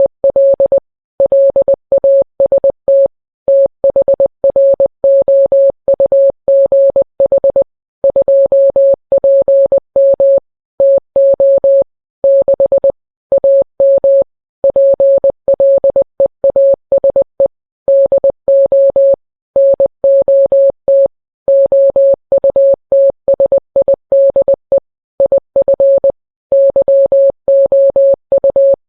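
Morse code sent as a single steady beep tone, keyed on and off in quick short and long beeps with brief pauses between groups, spelling out a mock emergency-alert tornado warning.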